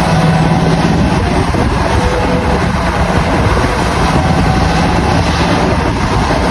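A railway locomotive running steadily: a continuous low drone with a steady hum, no break or rhythm in it.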